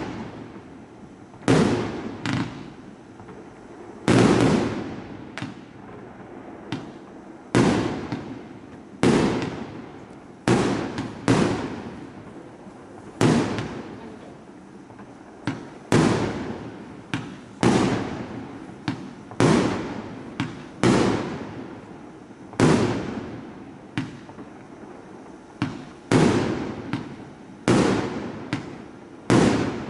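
A 140-shot compound firework cake firing, its shots banging in the sky about once a second, each one dying away before the next.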